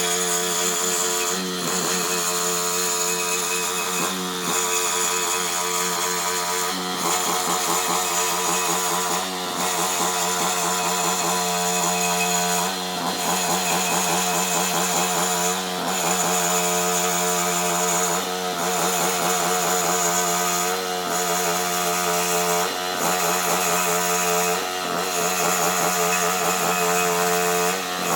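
Husqvarna soft-cut concrete saw running and cutting, its engine pitch wavering slightly under load, with short dips in the sound every two to three seconds.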